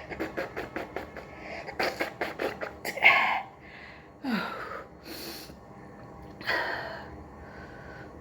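A person's quick, catching sniffs and breaths while a matchstick tickles inside the nose to bring on a sneeze. About three seconds in comes the loudest wheezing burst, followed by a few gasping, sneeze-like exhalations.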